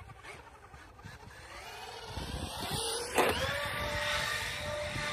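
Traxxas Maxx 4S RC truck's electric brushless motor whining as it accelerates, the pitch climbing. From about three seconds in, it holds a steady high whine as the wheels spin freely with the truck airborne off a jump.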